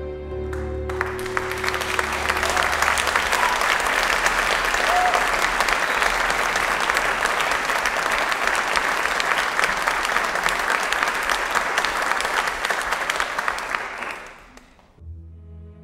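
Theatre audience applauding steadily after the music stops about a second in; the applause dies away near the end as quiet string music begins.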